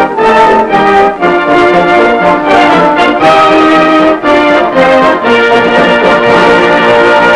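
Brass-led orchestral music, chords changing every half second or so, settling on a long held chord about five seconds in.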